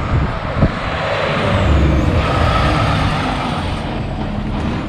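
Diesel engine of a cesspool pump tanker truck running with a steady low rumble.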